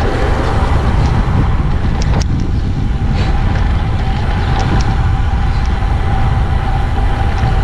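Wind buffeting the camera microphone while riding a bicycle on a road: a steady, loud low rumble with a faint even hum and a few light clicks and rattles.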